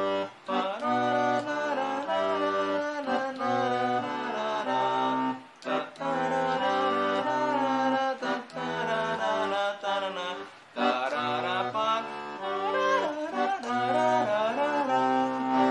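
Roland V-Accordion (digital accordion) playing a bass-and-chord accompaniment that alternates between C and G, the first note of each pattern held long. Sustained notes with two short breaks, about five and eleven seconds in.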